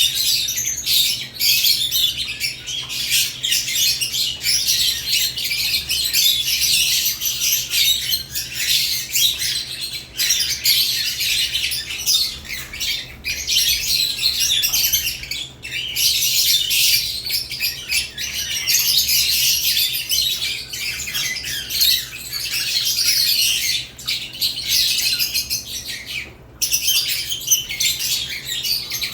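Lovebirds chirping and squawking continuously, a dense overlapping chatter of high, shrill calls with only brief pauses.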